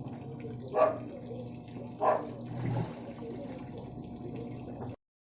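Water running into the tub of a Sharp ES-V75HP-GY automatic washing machine as it fills, over a steady low hum. Two short louder sounds come about one and two seconds in, and the sound cuts off abruptly near the end.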